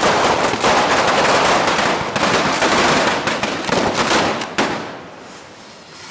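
Fireworks and firecrackers going off in a dense, rapid crackle of bangs that dies down about five seconds in.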